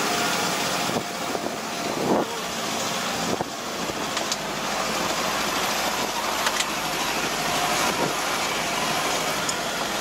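Hired four-wheel-drive truck driving up a steep mountain road, its engine and road noise heard from on board, with a couple of sharp knocks in the first few seconds.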